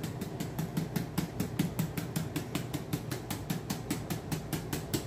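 Plastic canister of grated parmesan ('shaky cheese') shaken rapidly over a plate of pasta. It makes a quick, even rattle of clicks, about seven or eight shakes a second.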